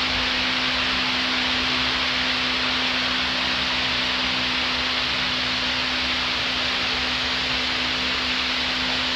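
Large wall-mounted fan running: a steady rush of air with a constant low hum.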